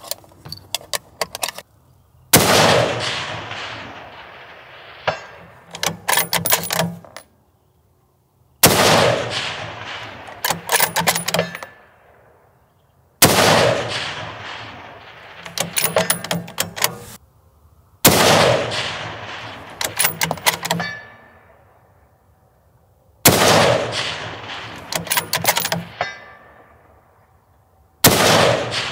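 A 6.5 Creedmoor bolt-action precision rifle, an Alamo Precision Rifles Ranger, fired six times about five seconds apart, each shot echoing away. Between shots, a quick run of metallic clicks from the bolt being worked to chamber the next round.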